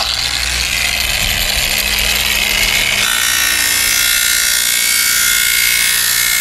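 Variable-speed angle grinder running at a low speed setting, fitted with a 200-grit diamond polishing pad. About three seconds in, the pad is eased onto the wet-saw cut edge of a tile and the whine changes as it grinds the square edge toward a bevel.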